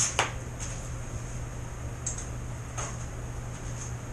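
Light clicks and taps of a drill and mixing gear being handled and set down on a workbench, a few scattered single clicks over a steady low hum.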